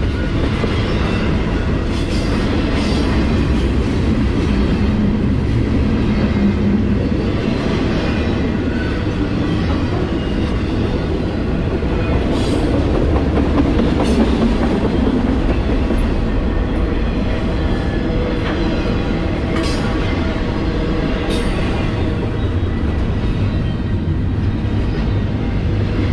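Double-stack intermodal freight cars rolling past close by: a steady, loud rumble of steel wheels on rail, with a few sharp clicks from wheels crossing rail joints.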